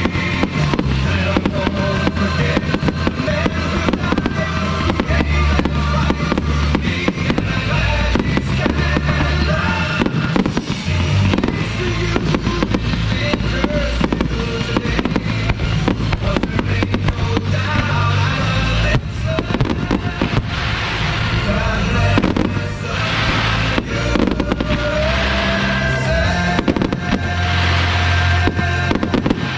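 Fireworks going off in rapid succession, bang after bang, over music with a steady bass line. A few long hissing bursts come in the last several seconds.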